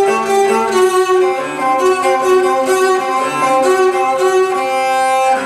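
A recording of bowed cello played over a hi-fi system through floor-standing loudspeakers: sustained notes moving from one to the next, with the rosin on the bow audible.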